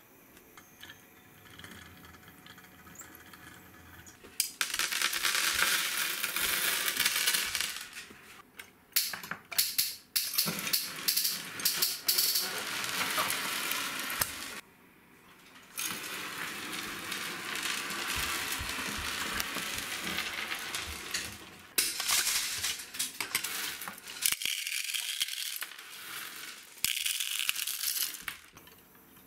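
Small gravel stones clattering as they are poured into a plastic toy dump truck's bed and spill onto a wooden tabletop. The clatter comes in several spells of a few seconds each, with separate clicks of single stones between them.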